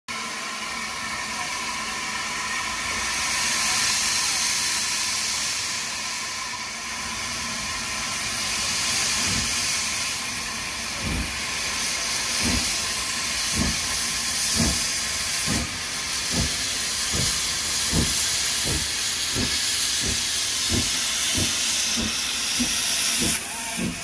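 Steam locomotive working a train past at close range, with a steady hiss of steam from its cylinders. About nine seconds in, regular exhaust chuffs start and come faster and faster as it gathers speed.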